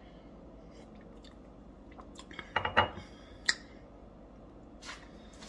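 A man drinking eggnog from a glass: swallowing sounds about two and a half seconds in, then a sharp click about a second later.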